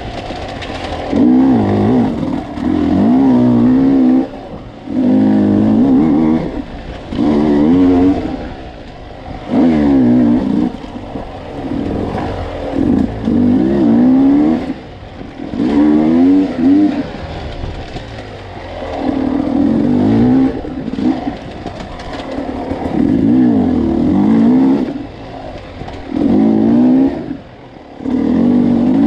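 Dirt bike engine heard from on board, revving up and backing off over and over, its pitch climbing and falling every two seconds or so as the throttle is opened and closed along a twisty trail.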